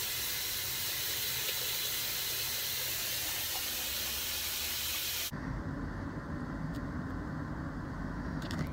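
Bathroom tap running steadily into a sink while teeth are brushed. About five seconds in it cuts off abruptly and a low, muffled rumble takes over.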